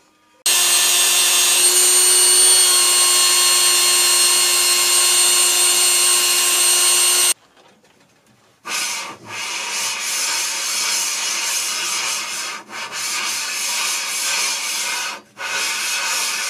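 Abrasive lapping: a welded steel frame is rubbed by hand back and forth over a flat lapping surface, a dense scraping noise broken by short pauses between strokes. It is flattening the frame's faces to a precise plane. Earlier there is a separate, louder steady abrasive noise with a constant high whine that lasts about seven seconds and stops suddenly.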